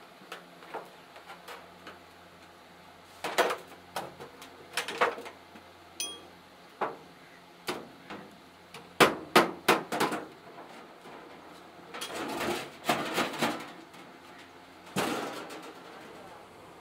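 Steel sheet from a cut-open oil drum being knocked and bent into a wheelbarrow tray: irregular metallic clanks and knocks, with a quick run of about six strikes in the middle and longer rattling clatters of the flexing sheet after it.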